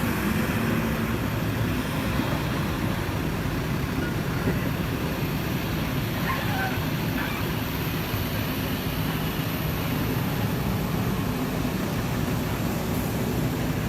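Heavy truck's diesel engine running steadily, with a constant low drone and no clear revving.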